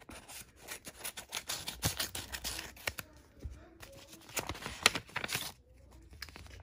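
Scissors snipping through a paper envelope in a series of short cuts, with paper rustling and a sharp click nearly five seconds in, then the paper handled as a note is drawn out.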